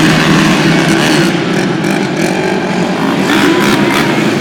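ATV engines running during an obstacle-course run, loud and continuous.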